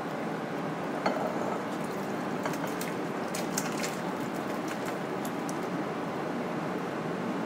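Cooked tomatillos and their broth pouring and sloshing from a pan into a glass bowl, with a few light clicks about a second in and again around the middle.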